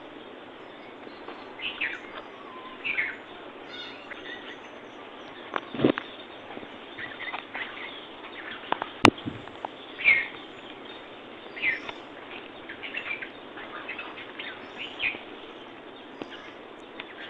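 Birds chirping, with short calls scattered every second or two over a steady background hiss. Two sharp clicks cut through, about six seconds in and again, louder, about nine seconds in.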